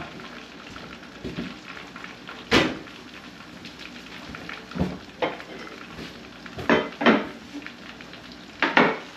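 A foil-lined metal baking sheet being taken out of the oven and carried over: about half a dozen sharp metal clanks and knocks, the loudest about two and a half seconds in, over a steady hiss.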